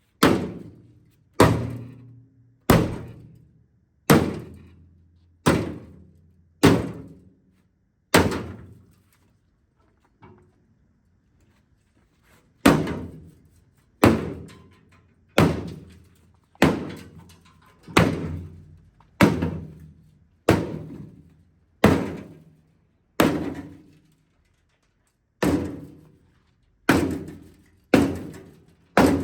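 Big hammer striking the old sheet-steel floor pan of a Volkswagen Beetle chassis again and again, to pop its spot welds so the pan breaks away from the tunnel. About twenty heavy metallic blows come roughly one every second and a half, each with a short ringing decay, with a pause of a few seconds a third of the way in.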